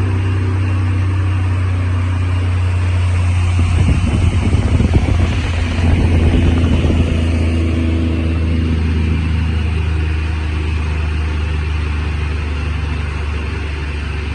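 Wood log crusher running with a steady low hum; from about three and a half seconds in to about seven and a half seconds, louder irregular crunching as wood is fed through and shredded into sawdust, then the machine runs on steadily.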